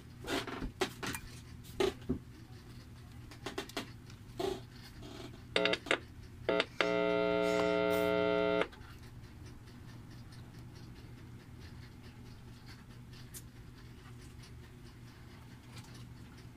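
Light clicks and taps from test probes being handled on an amplifier circuit board. Then a few short electronic blips and a steady buzzing tone of about two seconds that cuts off suddenly, over a low hum.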